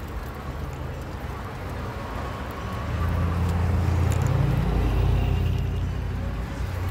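Street traffic: a motor vehicle's low rumble swells about three seconds in and eases off near the end, over steady traffic noise.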